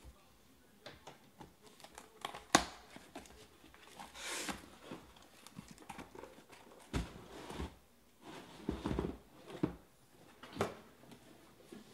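Cardboard shipping case being opened and its shrink-wrapped hobby boxes lifted out and stacked on a table: a sharp knock about two and a half seconds in, a brief rustle near four seconds, then a series of dull thumps and taps as the boxes are set down.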